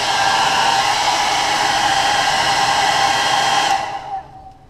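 An 1875-watt handheld hair dryer runs steadily, heat-setting freshly sprayed airbrush paint. It is switched off a little before the end and winds down.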